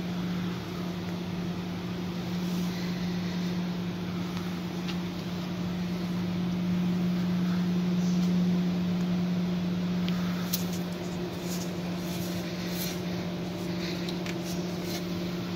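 A steady mechanical hum at one constant pitch, with a few light clicks and taps in the last few seconds.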